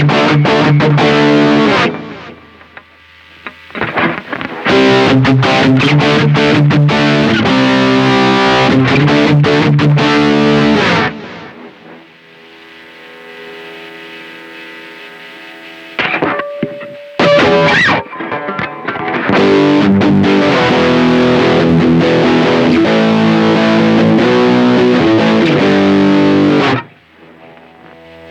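Distorted electric guitar played through a Marshall MG102CFX amplifier, heard directly from the amp rather than through a microphone. Repeated chords and riffs stop briefly about two seconds in. Around the middle a chord is left to ring out and fade, followed by a few single notes, before the riffing resumes and stops near the end.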